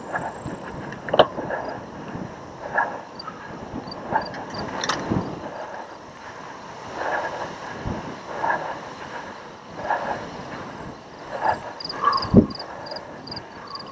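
Ride noise from a cyclocross bike on a bumpy grass course, heard from a camera mounted on the bike or rider: a steady rush of wind and tyres with knocks and rattles, and louder pulses about every second and a half.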